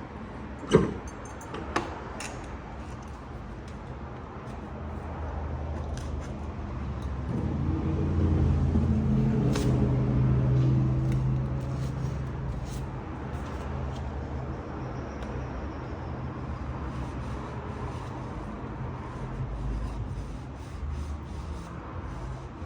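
Hand work on an opened geared hub motor: two sharp clicks about a second apart near the start, then scattered light clicks and rubbing. Behind it, a low engine hum swells to a peak about halfway through and fades.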